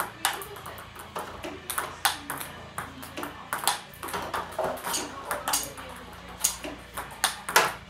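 Table tennis rally: the ping pong ball hits paddles and table in an even run of sharp clicks, about two to three a second.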